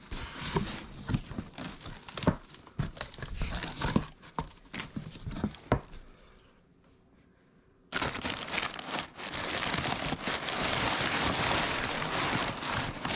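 Packing material crinkling and being pulled about in a cardboard shipping box, with scattered knocks and rustles, a pause about six seconds in, then continuous crinkling from about eight seconds in.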